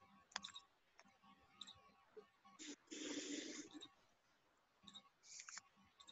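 Near silence with a few faint clicks and one short, soft breathy noise about three seconds in.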